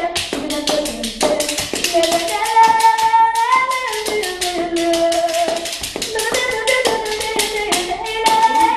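A boy singing a manele song unaccompanied, holding long, ornamented notes that slide up and down in pitch. Hand claps keep a quick, steady beat under the voice.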